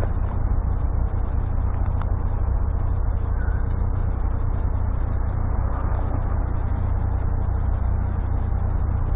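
Steady low rumbling noise with no distinct sounds standing out.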